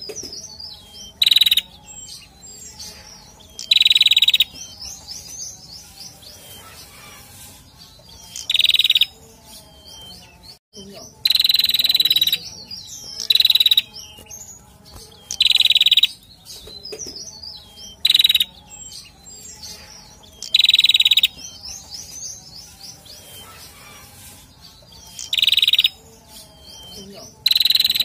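Caged male prenjak singing: loud, ringing calls repeated every two to three seconds, with faint, quick chirps in between.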